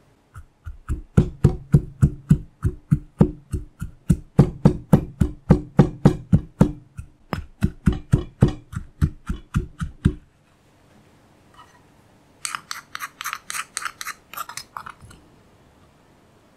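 Granite pestle pounding garlic and coriander root in a stone mortar: steady, heavy thuds at about three strokes a second, which stop about ten seconds in. About twelve seconds in comes a quick run of scraping clicks as a wooden spoon scrapes the crushed paste around the mortar.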